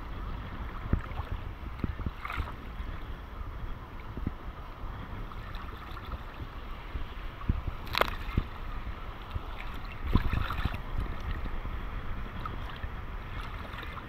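Sea water sloshing and lapping against a camera bobbing at the surface, with a low wind rumble on the microphone. A few sharp splashes break through, the sharpest about eight seconds in and a short cluster around ten seconds.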